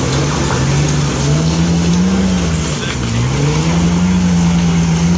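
Lifted Jeep Wrangler's engine revving hard under load as it starts up a muddy hill climb. The pitch rises, dips briefly about three seconds in, then rises again.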